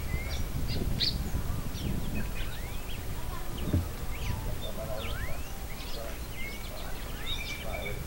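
A feeding flock of small birds, red-cowled cardinals among them, chirping: many short chirps and quick rising whistled calls overlap without a break, over a steady low rumble.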